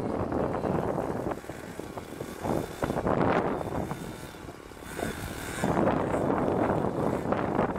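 Gusty wind buffeting the microphone: a rough rushing that rises and falls, easing off about halfway through and swelling again near the end.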